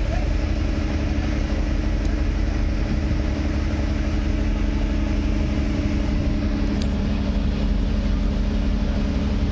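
Heavy machinery running steadily with a deep hum and a few steady tones, like a large engine idling. About seven seconds in, one of the tones drops away and there are a couple of faint ticks.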